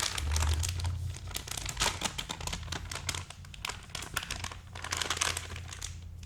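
Plastic packaging crinkling and rustling as it is handled, in dense irregular crackles.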